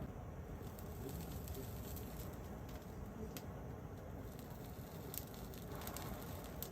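Faint crackling of a campfire: scattered sharp pops at uneven intervals over a steady low background noise.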